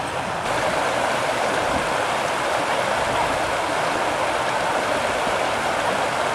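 River water rushing and rippling steadily.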